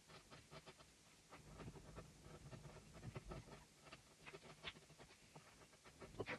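Faint short scrapes and clicks of a hand-pushed carving gouge paring chips from a wooden relief panel, one quick cut after another at an uneven pace.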